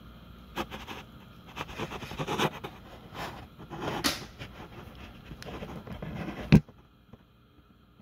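Irregular metallic rattling and clicking from an American Flyer 771 operating cattle farm accessory and its cattle car. A sharp loud click comes near the end, after which the rattling stops.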